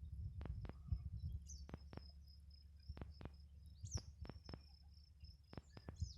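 Faint outdoor insect trill: a steady high-pitched buzz, with a few short high chirps and pairs of sharp clicks repeating about every second and a bit, over a low rumble.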